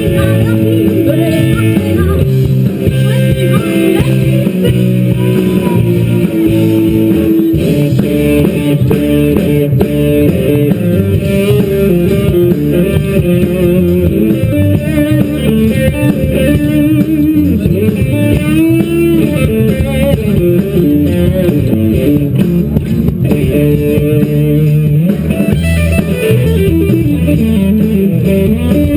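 Guitar-led music with bass, bluesy in style: an electric lead guitar playing wavering, bent notes over a steady backing.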